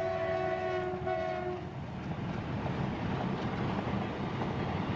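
A freight train's horn sounds a chord of several steady tones that cuts off about one and a half seconds in. After it comes the steady rolling rumble of a long container train's wagons passing on the track.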